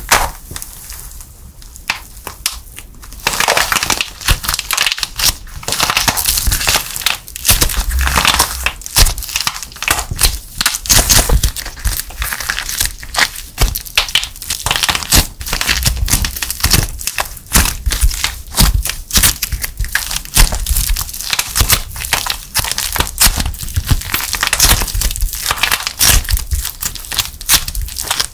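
A hardened plaster clay shell cracking sharply under finger pressure, then crushed and kneaded by hand together with the soft foam-bead clay inside: dense, uneven crackling and crunching from about three seconds in.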